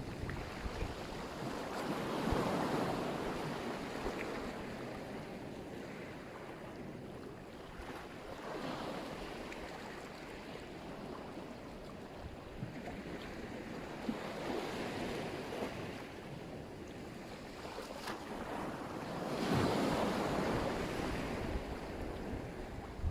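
Black Sea surf: waves breaking on the shore in swells about every six seconds, each rising and falling away, over a low rumble of wind on the microphone.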